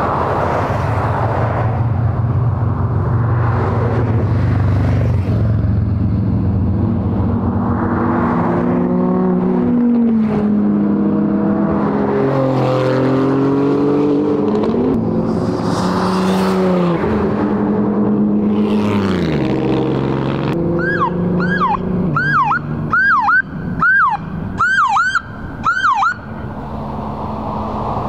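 Rally cars driving past one after another, their engines revving and the pitch falling as each goes by. Near the end a siren sounds in quick repeated falling sweeps, about two a second, for several seconds.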